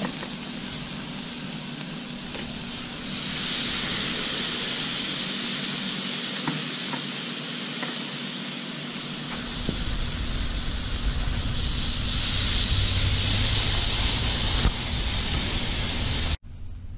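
Marinated ribeye steaks sizzling on a charcoal grill grate, a steady hiss that grows louder about three seconds in and again later as more meat goes down. It cuts off abruptly near the end.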